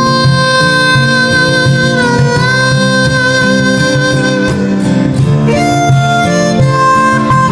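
Background instrumental music: a lead melody of long held notes over a steady plucked accompaniment, with the melody moving to new notes about five seconds in.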